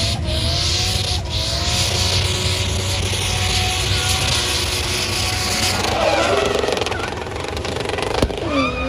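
Drift car sliding with its engine revving, the revs rising and falling several times over the hiss and screech of spinning tyres. A single sharp pop about eight seconds in.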